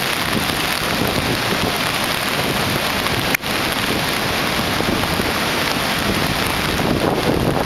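Mountain river in full flood: a steady, loud rush of muddy floodwater, broken once by a split-second dropout about three and a half seconds in.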